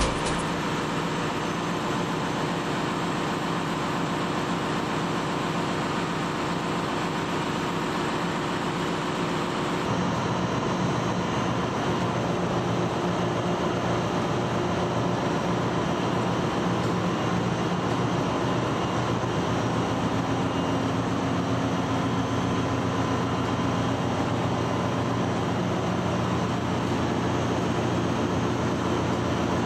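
Steady drone of a ship's engine-room machinery running during ballast-tank stripping, with a low hum under an even noise; the tone of the hum changes about ten seconds in.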